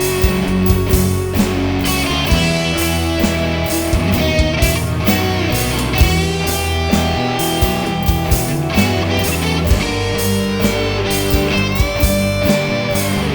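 Instrumental rock music with electric guitar over bass and drums, no vocals.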